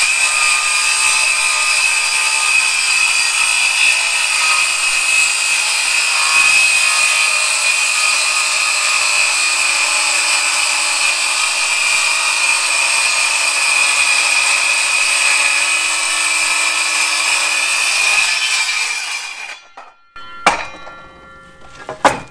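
Cordless circular saw on a homemade track ripping a thick new scaffold plank lengthwise: a steady high motor whine over the cutting noise for about eighteen seconds, then the saw spins down. A few knocks near the end.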